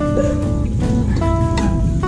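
Background music led by plucked guitar notes, over a steady low rumble.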